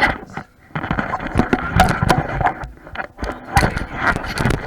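Irregular scraping and rustling with many sharp clicks and knocks, louder than the talk around it, with a short lull about half a second in.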